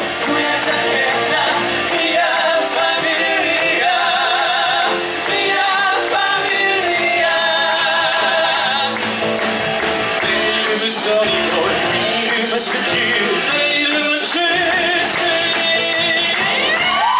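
Live singing over band accompaniment, sustained sung notes with wide vibrato; near the end a voice slides up into a long held note.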